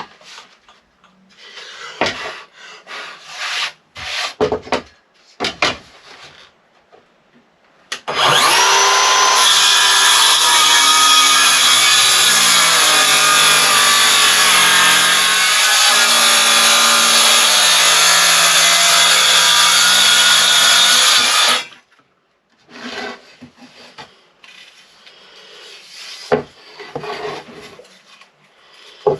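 A few knocks and clicks, then, about eight seconds in, a circular saw starts with a rising whine and runs loud and steady for about thirteen seconds as it makes a rip cut through wood, stopping suddenly. More knocks and clicks follow.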